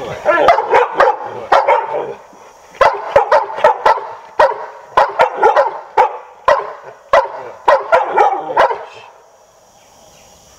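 Labrador retrievers barking excitedly in quick repeated runs, eager for a held ball to be thrown; the barking stops near the end.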